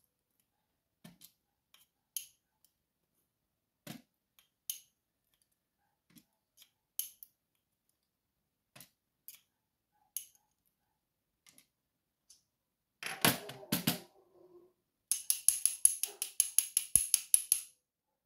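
Small metal clicks of tweezers and pins being taken out of a Schlage Primus lock cylinder, spaced a second or more apart. About two-thirds of the way through there is a louder clatter, then a fast run of sharp clicks, roughly eight a second, that lasts a couple of seconds.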